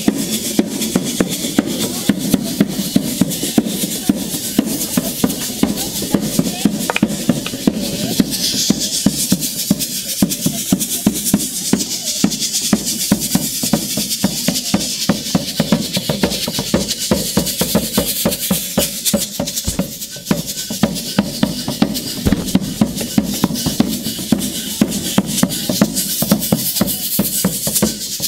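Percussion music with drums and shakers keeping a steady beat.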